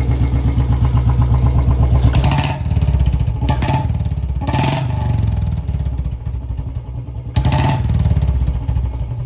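Royal Enfield Bullet Standard 350 single-cylinder engine idling through a free-flow bend pipe and short bottle silencer, blipped four times on the throttle. The bend-pipe joint has been sealed with a new gasket ring, so there is no exhaust leak, and the note is louder and clean, with no popping when the throttle is released.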